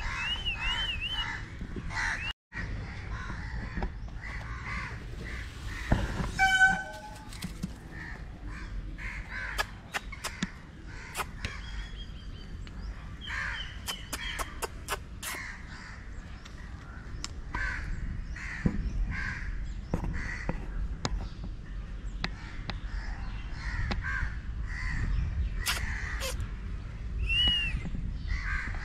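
Crows cawing over and over, with other birds calling and whistling. A single loud, short bird call stands out about six seconds in.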